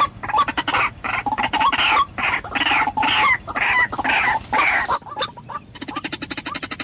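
White-breasted waterhen (ruak-ruak) calling: a run of loud, harsh croaking notes about two or three a second. From about five seconds in it gives way to a quieter, faster chatter of short notes.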